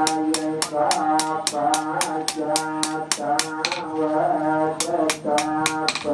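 Background music: a droning, reedy melody over a fast, steady beat of sharp strikes, about five a second.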